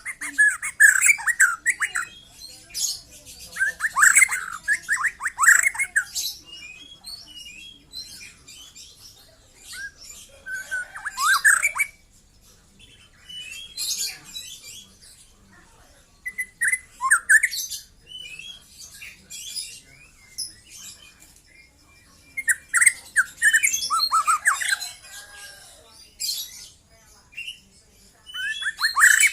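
Young white-rumped shama (murai batu) singing in bursts of varied phrases a few seconds long, separated by short pauses.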